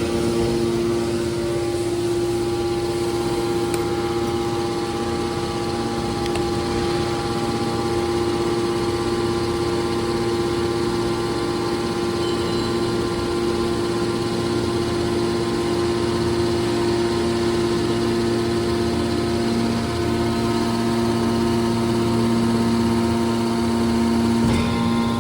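Horizontal hydraulic metal baler's power unit running steadily: a constant machine hum with several held tones.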